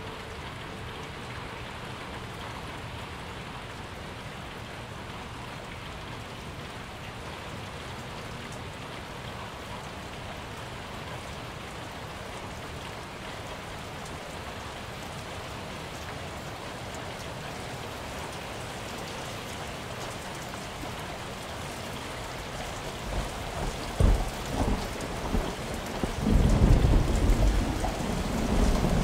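Steady rain, with low thunder rumbling in over the last several seconds and swelling loudest near the end.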